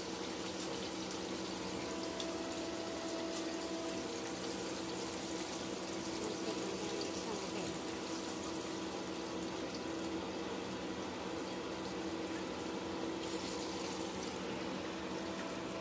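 Chicken frying in a pot of hot oil: a steady sizzle and bubbling with small scattered crackles. A steady hum runs underneath.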